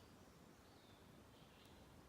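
Near silence: faint outdoor ambience with faint high-pitched chirps repeating roughly every three quarters of a second, and one faint click near the end.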